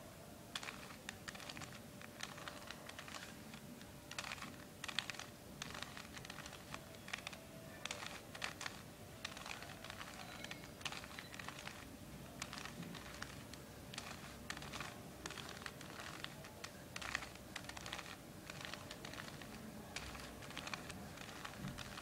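Plastic 3x3 Rubik's cube being turned by hand: a quick, irregular run of clicks as its layers snap round, turn after turn.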